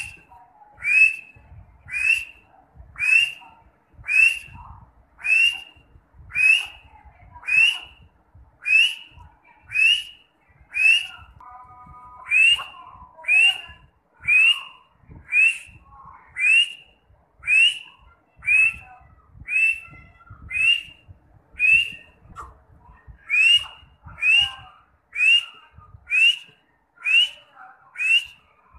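Grey francolin (teetar) calling over and over, a rising whistled note about once a second, with a brief break a little before the middle.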